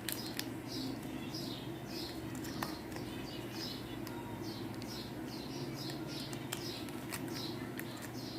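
A bird chirping over and over, short high calls that drop in pitch, about one or two a second, with a few light clicks and taps mixed in over a steady low hum.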